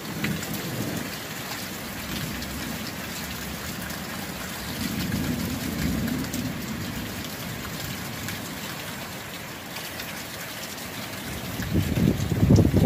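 Heavy rain pouring steadily, with low rumbles swelling about five seconds in and again, louder, near the end.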